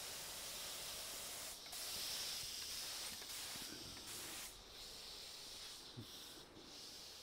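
Paint spray gun hissing as primer is sprayed, stopping briefly a few times, about one and a half, four and a half and six seconds in.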